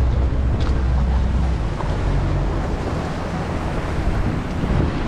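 Small open motorboat at sea: wind buffeting the microphone and water rushing and splashing along the hull, over a low engine drone.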